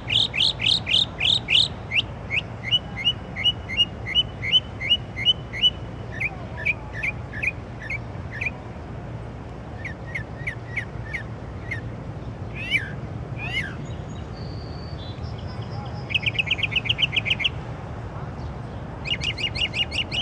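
A songbird singing a varied song: each phrase is a rapid series of the same short, sharp note repeated several times, then it switches to a different note, with a couple of separate descending notes around the middle and fast trills near the end. A steady low hum runs underneath.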